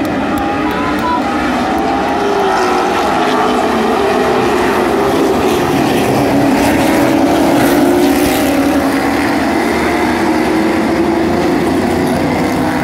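Several street stock race cars' engines running on the track, their overlapping engine notes rising and falling in pitch and growing louder about eight seconds in as the pack passes.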